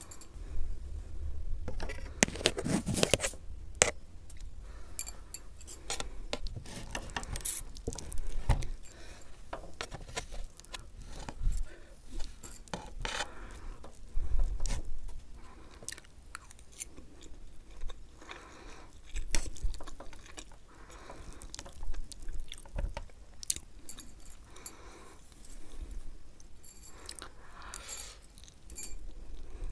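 Close-miked eating sounds: mouthfuls of Maggi instant noodles being chewed, with a metal fork scraping and tapping the plate as it twirls the noodles, in irregular bursts of clicks and smacks.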